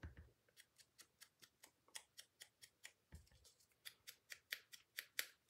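Faint, sharp light taps or clicks from hand work with craft tools on paper, about four a second and a little uneven, pausing briefly a little past halfway with one soft low thump just before the pause.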